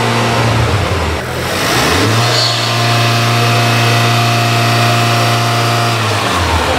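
2017 Honda Civic Type R's 2.0-litre turbocharged four-cylinder engine held at raised revs through its exhaust. The revs drop a little about a second in, come back up about two seconds in and hold steady, then fall back near the end.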